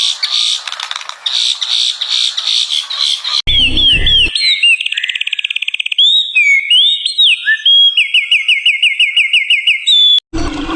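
Birds calling in two back-to-back clips. First comes a harsh, fast chattering. After an abrupt cut come whistled notes that slide up and down, a rapid trill, and a series of quick repeated down-slurred whistles.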